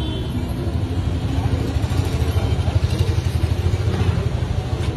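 A motor vehicle engine running close by, a low rumble with a rapid, even pulse, over general street traffic noise.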